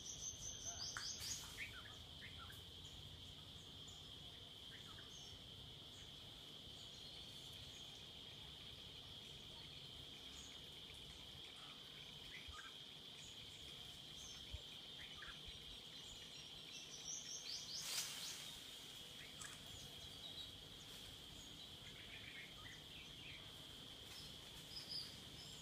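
Steady, high-pitched insect drone with scattered short bird chirps. The chirps come in quick runs near the start and again about 17 seconds in.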